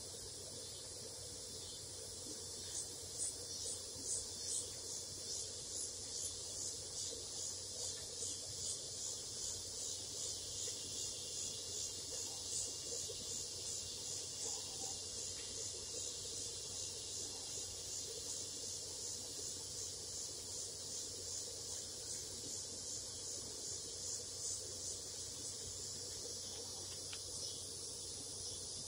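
Evening insect chorus: a steady high trill, and over it a louder rhythmic pulsing call about twice a second that starts a few seconds in and fades out near the end.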